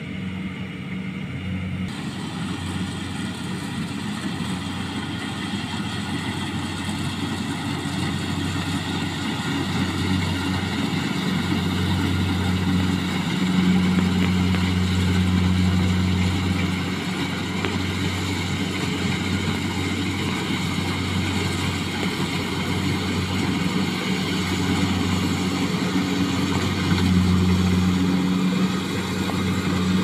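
Small rice combine harvester running as it cuts and threshes rice: a steady engine drone that grows louder as the machine comes closer, loudest in the middle and again near the end.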